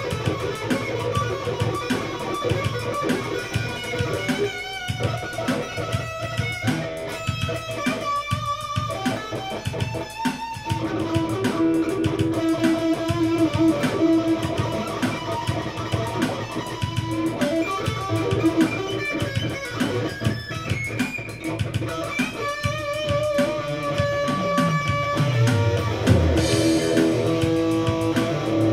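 Electric guitar played through an amplifier, improvising single-note lines and held notes, with a low note sliding down in pitch about three quarters of the way through.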